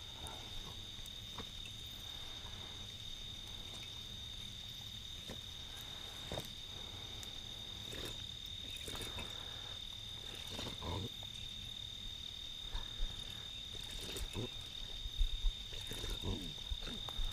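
Night insects, such as crickets, calling in one steady, unbroken high-pitched note. A few faint rustles and knocks sound over it, more of them near the end.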